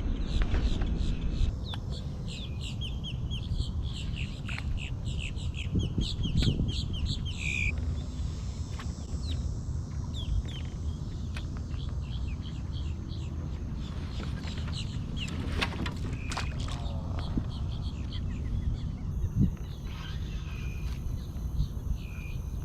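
Birds chirping in rapid runs of short high notes, busiest in the first several seconds and then only now and then, over a steady low rumble.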